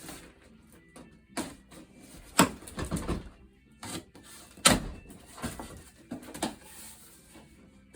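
A cardboard shipping box being opened and its packing handled: a series of knocks, thumps and papery rustles, the two loudest knocks about two and a half and four and a half seconds in.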